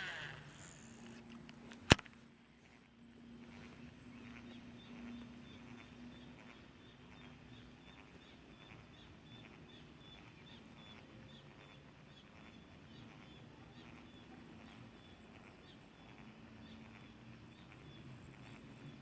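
A sharp click about two seconds in, then the faint quick ticking of a spinning reel being cranked as a spinner lure is retrieved, about four ticks a second, over a steady faint high-pitched hum.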